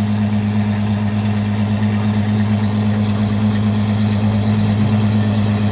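Apollo Intensa Emozione's naturally aspirated V12 idling, a steady deep even note.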